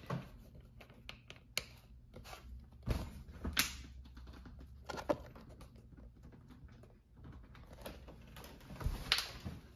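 Scattered light plastic clicks and taps as gaming-chair end caps are pushed into the holes in the backrest's plastic side bracket, with a few louder knocks about three, five and nine seconds in.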